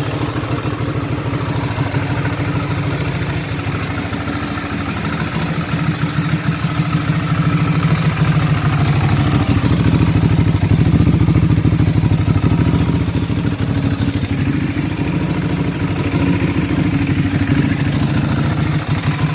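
Ducati Hyperstrada 821's 821 cc Testastretta L-twin engine idling, a steady rapid pulsing beat. It gets somewhat louder about six to eight seconds in.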